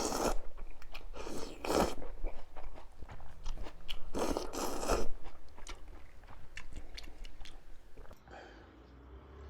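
A person eating mala ramyun close to the microphone: loud bites, slurps and chewing in several half-second bursts with smaller wet clicks between them, quieter over the last second or so.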